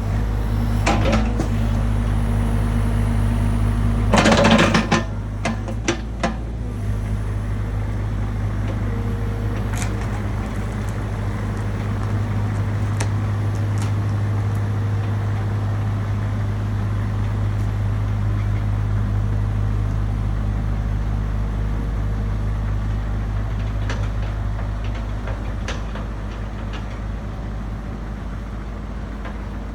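Cat 305 mini excavator's diesel engine running steadily under work, with a loud clatter about four seconds in and scattered knocks and clunks.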